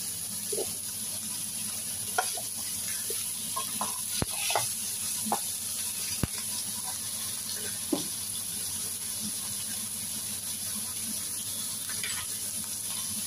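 Pork cubes and onion searing in hot oil in a nonstick frying pan: a steady sizzle, with a spatula stirring and knocking against the pan a handful of times in the first eight seconds.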